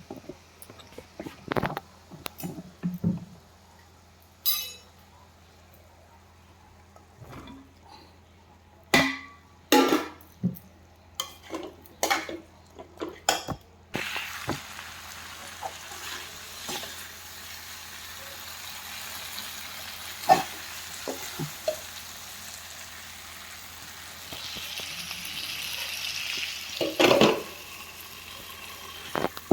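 A spoon knocks and scrapes against a cooking pan of mixed vegetable sabzi several times. About halfway through a steady sizzle of frying sets in, with a few more spoon knocks and one loud clatter near the end.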